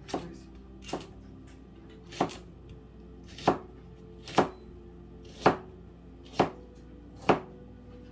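Kitchen knife chopping fennel on a cutting board: eight separate strokes, roughly one a second.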